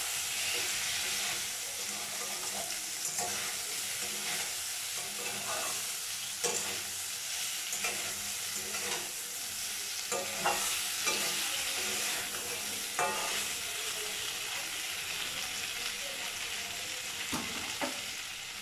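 Moringa drumstick pieces sizzling as they fry in oil with a coating of spice paste, while a metal spatula scrapes and knocks against the aluminium kadai as they are stirred. The sizzle is steady; the spatula strikes come at uneven intervals, a few of them sharper.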